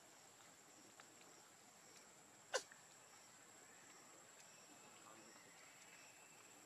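Near silence in forest ambience: a faint steady high-pitched insect hum with faint regular pips about twice a second, broken once, about two and a half seconds in, by a single short, sharp chirp that drops quickly in pitch.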